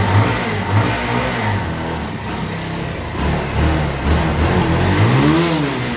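Bajaj Pulsar motorcycle's single-cylinder engine running and being revved, its pitch rising and falling about five seconds in.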